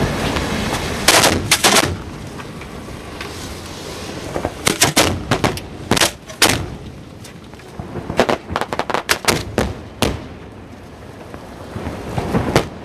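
Barge fireworks display going off: rapid clusters of sharp bangs from shells launching and bursting, after a rumbling start.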